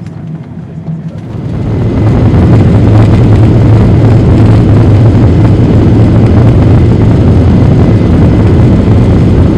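Boeing 737-800's CFM56 jet engines at takeoff thrust, heard from a window seat over the wing: the roar swells over about a second, then holds steady and loud as the takeoff roll begins.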